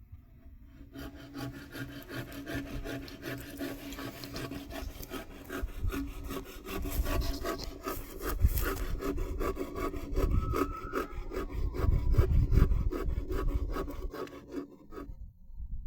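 Saw cutting into a wooden post or log, a rapid, even run of strokes that builds in loudness and stops abruptly near the end.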